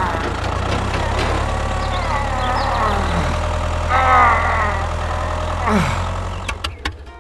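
Low, steady tractor-engine idling hum, cutting off near the end. A few high, gliding voice-like calls sound over it, the loudest about four seconds in.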